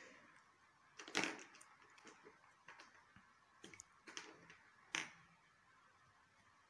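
Near silence with a few faint, short clicks and light rustles: about a second in, around four seconds in, and once more about five seconds in.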